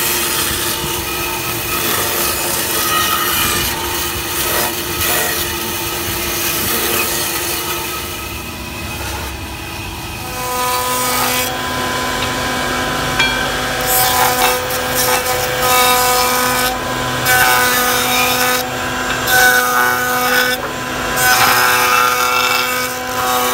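A bandsaw cutting through a block of wood for roughly the first ten seconds. Then a router-table cutter runs with a steady hum and bites into a wooden sickle handle in repeated surges as it is shaped.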